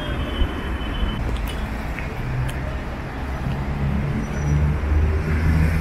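Road traffic at a city intersection: cars and vans driving past with a continuous low engine rumble, one vehicle's engine growing louder near the end.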